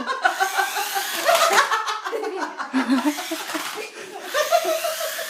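A young child laughing repeatedly in bursts of high-pitched voice.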